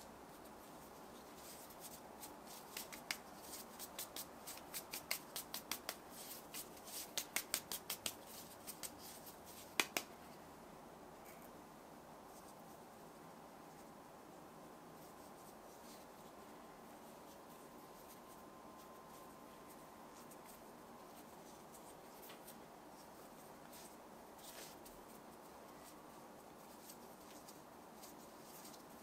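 A run of small sharp clicks and taps as hands work cornstarch-dusted mochi dough, some in quick clusters of about four a second, the loudest a single click about ten seconds in. After that, only faint room tone while the soft dough is wrapped around a ball of bean paste.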